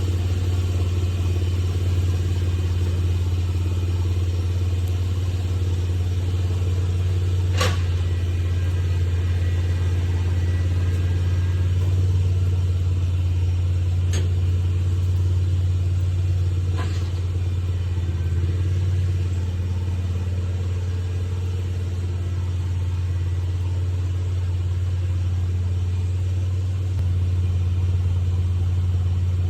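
A vehicle engine running steadily with a low, even drone. It is broken by three short sharp clicks.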